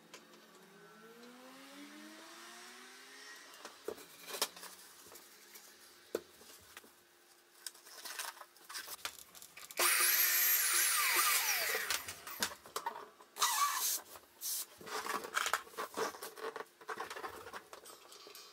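Small electric balloon inflator blowing up a latex balloon for about two seconds, a loud rush of air with squeaky gliding tones. Softer rubbing and clicks come before and after, from the screen-printing frame and squeegee being handled.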